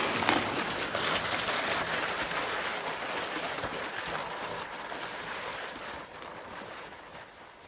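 Plastic ice-fishing sled dragged over snow-dusted lake ice: a steady scraping hiss that starts suddenly and fades as the sled is pulled away.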